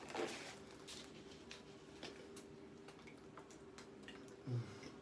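Faint chewing and small wet mouth clicks of someone eating pizza with a full mouth, then a single low gulp near the end as he swallows water from a plastic bottle.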